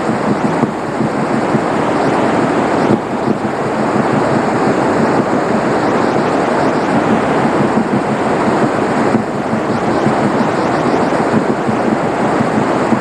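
Loud, steady rush of a large volume of water pouring out below the Oker dam and throwing up clouds of spray.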